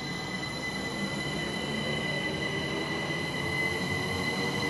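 British Rail Class 387 electric multiple unit running in along the platform: a rumble with a steady high-pitched whine in several tones on top, growing slowly louder as the train nears.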